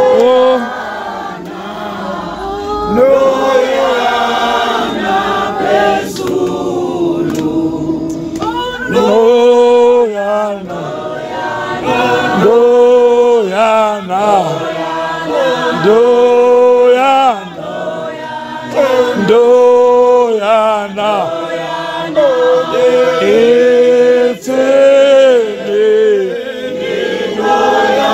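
A group of voices singing a church chorus together in short, repeated sung phrases.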